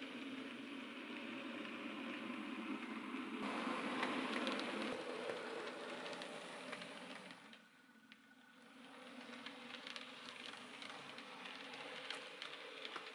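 Model railway two-car diesel multiple unit running along the track: a steady rolling whirr of its wheels and motor, loudest about four seconds in as it passes close. From about ten seconds in, rapid light clicking comes through as the wheels cross the points.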